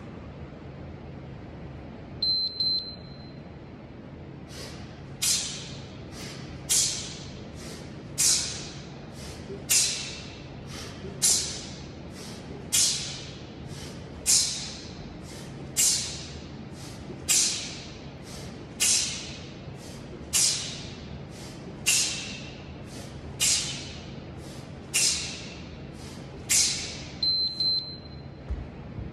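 An interval timer gives a short double beep about two seconds in and again 25 seconds later, marking a 25-second work interval. Between the beeps come single-arm kettlebell swings: a sharp hissing exhale at each swing, about one every second and a half, with a fainter hiss between.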